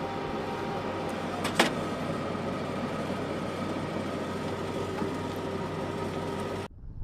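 Steady motor-vehicle running noise with a sharp click about a second and a half in. Near the end it cuts off abruptly to low wind rumble on the microphone.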